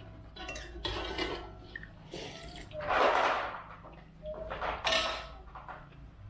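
Eating soto with rice: a spoon scraping and clinking on a plate, and several slurps of broth from the spoon, the loudest about three seconds in.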